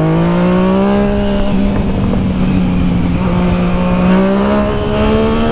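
Yamaha MT-09's three-cylinder engine under acceleration at road speed, really loud, its pitch rising through the first second and then holding high with a slow climb, over a rush of wind and road noise.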